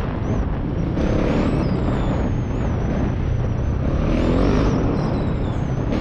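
Husqvarna 701 Enduro's single-cylinder four-stroke engine driving the bike along a dirt trail. Its note rises as the throttle opens about a second in and again about four seconds in.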